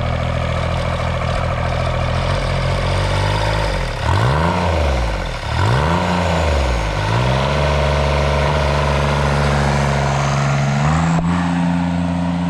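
Turbocharged diesel engine of a Kubota G6200 lawn mower running steadily, revved up and back down twice about four seconds in, then settling at a slightly higher speed near the end. The K03 turbo can be heard along with the engine.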